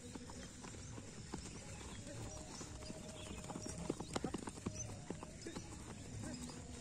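Bare feet of several runners striking grass and packed dirt at a sprint, an uneven patter of footsteps that is busiest about four seconds in.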